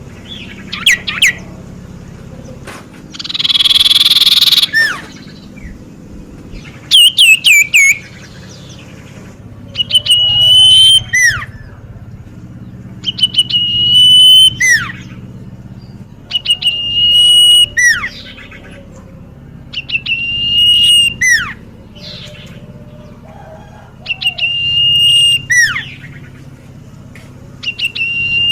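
Common iora (cipoh) singing. The phrase repeats about every three and a half seconds: a long, steady whistle that ends in a quick falling note. A harsh, rasping call comes about four seconds in.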